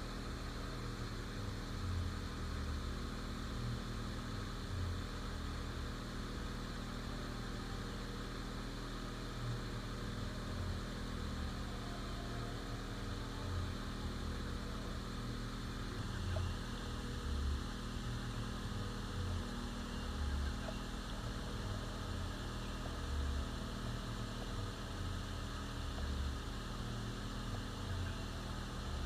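A steady mechanical hum, with irregular low bumps underneath.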